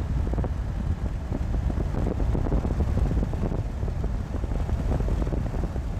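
Road noise from a truck travelling on a freeway: a steady low rumble with frequent short, irregular bumps.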